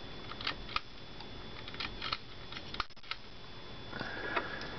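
A handful of faint, irregular clicks and ticks over low steady room noise.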